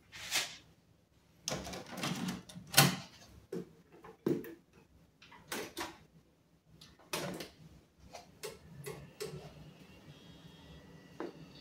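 A 386 desktop PC being switched on: a series of clicks and knocks, the loudest as the front-panel switch is pressed, then the power-supply fan and hard drive start up into a steady hum with a faint whine over it.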